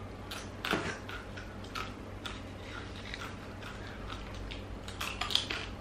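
Crispy tempeh chips being bitten and chewed, an irregular run of short crunchy crackles.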